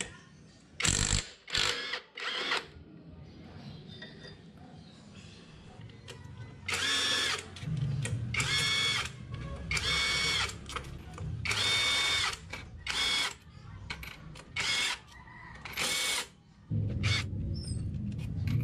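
Cordless drill-driver whirring in short bursts with a high whine, run on the clutch housing and then on the bolts of a scooter's transmission gear case cover. A low rumble comes in near the end.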